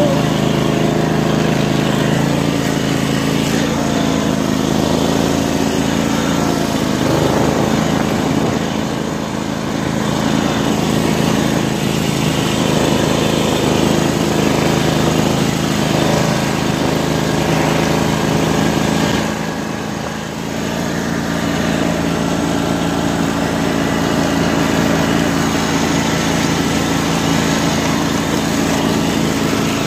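Riding lawn mower's small engine running steadily under way, dipping briefly in level twice, about ten and twenty seconds in.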